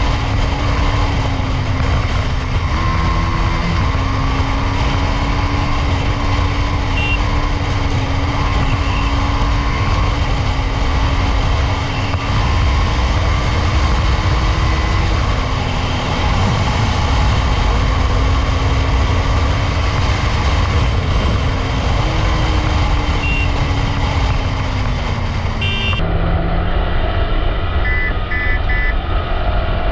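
Motorcycle riding at speed: a loud rush of wind on the microphone over a steady engine note that steps up and down in pitch a few times as the throttle changes. The sound changes abruptly about four seconds before the end.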